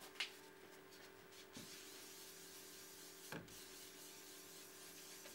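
Near silence: a faint steady hum and hiss, with two soft clicks, one just after the start and one about three seconds in.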